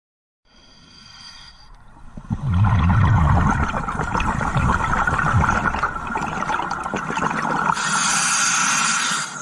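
A scuba diver's breathing through a regulator, heard underwater: a low, rumbling rush of exhaled bubbles from about two seconds in, then a hissing inhalation near the end.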